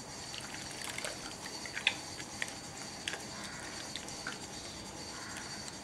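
Hands working soap in a glass bowl of water, with a few small, sharp splashes and sloshes, the loudest about two seconds in.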